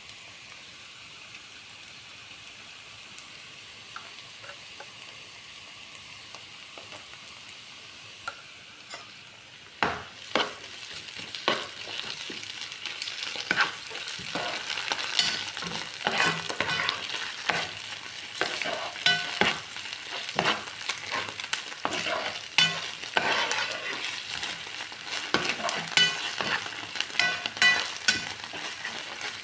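Chopped onions with tomato paste sizzling in a nonstick frying pan, a steady frying hiss. About ten seconds in, a spoon starts stirring the paste through the onions, scraping and knocking repeatedly against the pan, louder than the sizzle.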